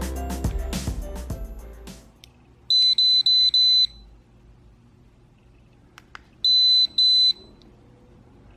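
Background music fading out, then an electronic call-system unit beeping: four quick high-pitched beeps, then, after a click, two more beeps. These are the confirmation tones of a Syscall wireless call button being registered and its sound set.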